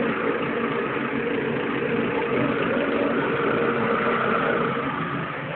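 Small four-stroke mini-bike engine idling steadily.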